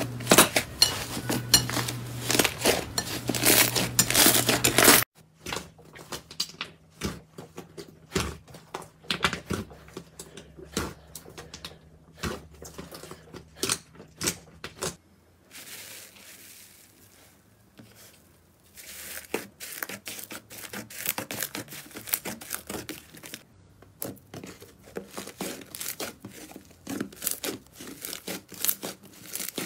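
Slime being pressed and squeezed by hand, crackling and popping. A loud, dense stretch of crackling over a low hum cuts off suddenly about five seconds in, and quieter, scattered clicks and pops follow.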